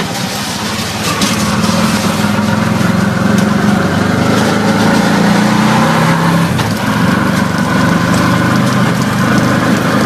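Auto-rickshaw (tuk-tuk) engine running as the tuk-tuk drives along, heard from inside the open cab. The engine note grows louder about a second in and dips briefly about two-thirds of the way through.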